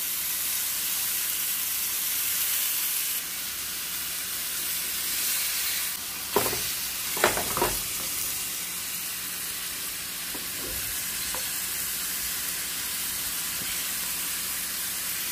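Cod fillets sizzling steadily in butter, garlic and lemon juice in a frying pan. About six to eight seconds in come a few sharp knocks of a spatula against the pan as the fillets are turned.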